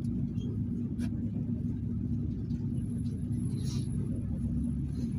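PAZ-32054 bus engine running, heard from inside the passenger cabin as a steady low rumble with a constant hum.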